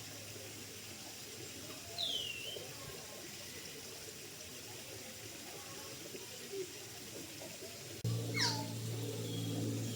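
Young kea calling: a short, falling call about two seconds in, and a fainter one later. About eight seconds in, background music starts, with another long falling call over it.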